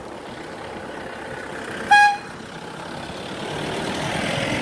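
A motor vehicle's horn gives one short toot about two seconds in. Then the noise of an approaching vehicle, a pickup, grows steadily louder near the end.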